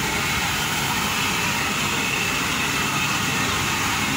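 Steam locomotive at a station platform, giving off a steady hiss of steam over a low rumble, with no exhaust beat.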